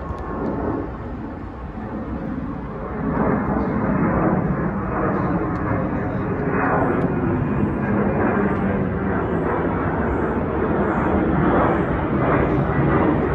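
Twin-engine jet airliner flying overhead: the broad rushing noise of its jet engines, swelling about three seconds in and then holding steady and loud.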